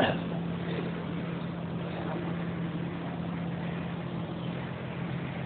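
Steady low hum under an even background hiss: the room tone of the recording, with nothing else standing out.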